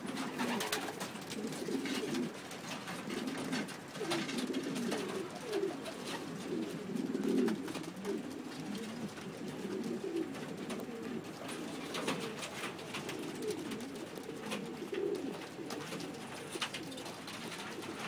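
Several young racing homing pigeons cooing, low rolling coos overlapping one after another throughout, with scattered sharp clicks and taps among them.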